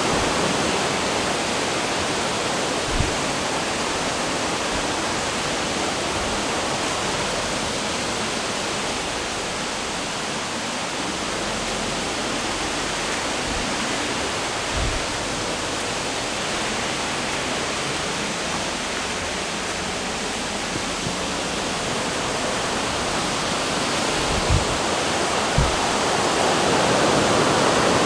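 Steady rush of a fast-flowing waterfall and river below, with a few faint low thumps.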